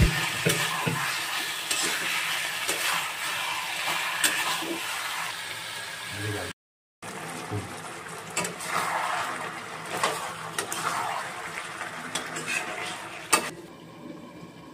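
Spatula stirring chicken pieces in masala in a kadai, with a frying sizzle and many small scrapes and clicks of the spatula against the pan. The sound drops out for a moment about halfway, and a sharp clack near the end is followed by quieter cooking.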